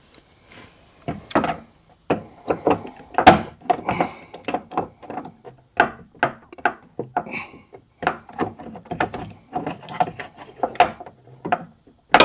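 Channel-lock pliers working at the pin of a Jeep XJ door check strap: a run of irregular metallic clicks and knocks against the door, with one louder knock about three seconds in and another at the end. The pin is not coming free.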